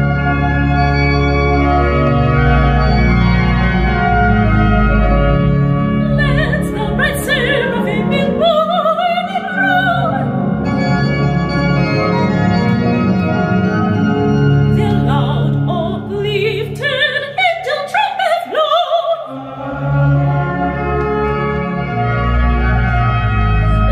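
Church organ playing sustained chords, joined about six seconds in by a soprano singing with vibrato. She sings one phrase, breaks off for a few seconds while the organ holds on, then sings a second phrase about fifteen seconds in.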